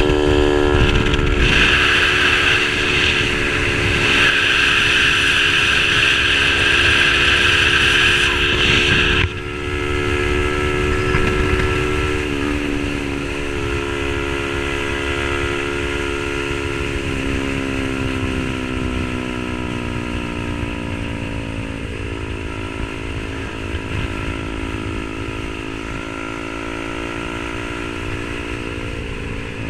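Yamaha R15 V3 motorcycle with a tuned SC Project aftermarket exhaust, under way at a steady pace. Its single-cylinder note sinks slowly in pitch, in steps. A brighter high hiss over the first nine seconds cuts off suddenly.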